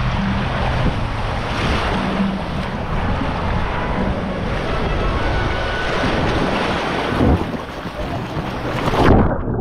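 Water rushing and sloshing under an inner tube sliding down a fibreglass water slide, with wind noise on the action camera's microphone. A splash as the tube runs out into the pool near the end, then the sound turns suddenly muffled as the microphone goes under the water.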